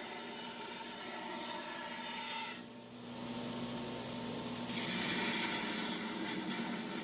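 Belt grinder grinding a bevel into a forged 5160 carbon steel blade: a hissing grind that stops about two and a half seconds in, leaving the grinder's steady running hum, then a louder pass starts after about four and a half seconds.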